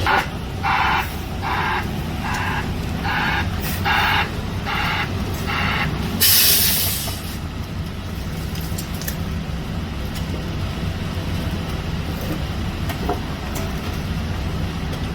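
Concrete mixer truck with its engine running steadily. A hissing broadband reversing alarm pulses about eight times, roughly one every 0.7 seconds, over the first five seconds. A loud air-brake hiss follows about six seconds in.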